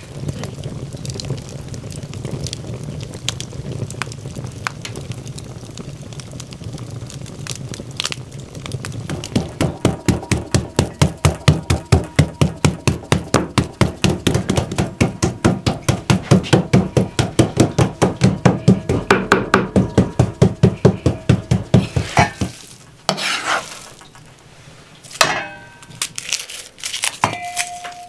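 Large kitchen knife chopping minced beef on a wooden cutting board in a fast, even rhythm of about four strokes a second, louder from about nine seconds in. The chopping stops, and near the end a few light knocks and a short metallic ring come as garlic is peeled over a small metal pot.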